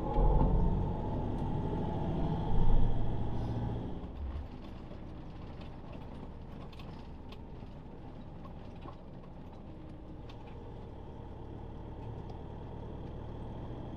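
Motorhome engine and road noise heard from inside the cab as it pulls away, louder for the first four seconds, then settling to steady running.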